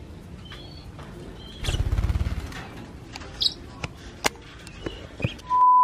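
Caged lovebirds giving scattered short, high chirps, with a few sharp clicks and a brief low rumble about two seconds in. Near the end a loud, steady, pure beep tone starts abruptly.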